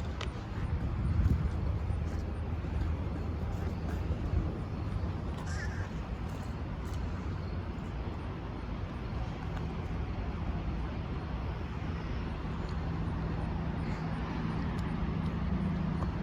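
Vehicle engine running, a steady low rumble with a low hum that grows stronger about halfway through, and a couple of brief higher sounds near the start and about five seconds in.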